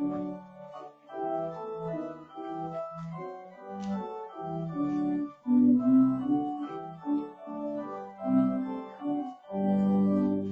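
Organ playing a slow piece of held chords, the notes changing every second or so, swelling louder about halfway through and again near the end.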